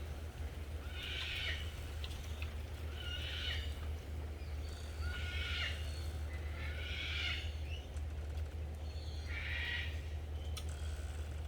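An animal calling five times, each call short and about two seconds apart, over a steady low hum.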